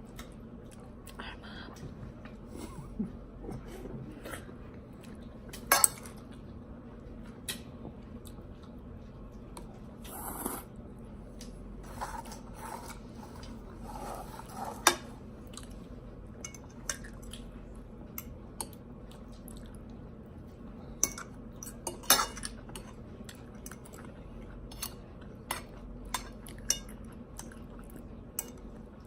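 Eating utensils clinking and tapping against dishes at irregular moments, with a few louder sharp clinks, over faint chewing.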